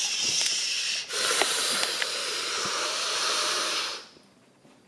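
Steady hissing noise that cuts off suddenly about four seconds in, leaving near silence.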